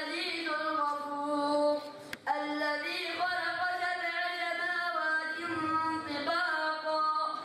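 A boy's solo voice chanting melodically into a microphone, long held notes with wavering turns, and a brief break about two seconds in.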